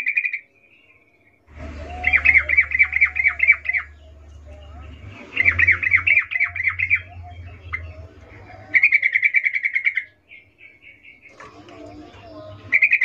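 Yellow-vented bulbul calling in bursts of rapid chattering notes, about ten a second, each burst lasting a second or two and repeated every few seconds. This is the female's breeding call, used to lure males into song.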